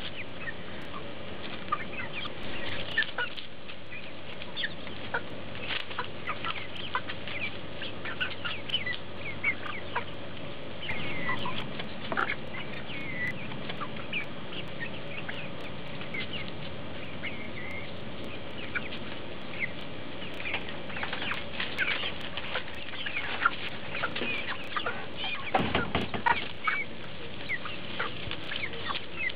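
A flock of hens clucking, with many short, scattered calls overlapping, while they peck at a watermelon. Sharp little clicks run through it, and the calls get busier in the last few seconds.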